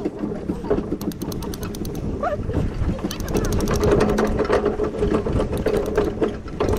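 A pony-drawn metal driving cart and its harness rattling as it moves through the arena: a fast run of even clicks over a steady hum.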